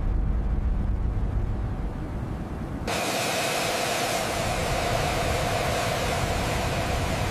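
Jet airliner engine noise: a deep rumble that switches abruptly about three seconds in to a steady, loud hiss with a droning tone running through it.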